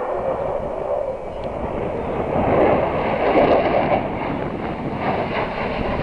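Jet noise of a Su-27 fighter's twin turbofan engines as it flies past overhead, a steady rush that swells about two to three seconds in, with wind buffeting the microphone.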